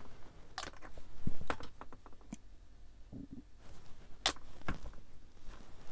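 Small clicks, taps and knocks of hand tools and a glass glue bottle being handled and set down on a cutting mat, with a soft thunk about a second in and a sharp click past four seconds.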